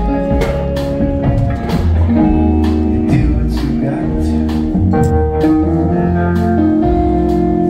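Live band playing an instrumental passage between sung lines: electric guitar over drums and a keyboard holding chords, with a heavy low end.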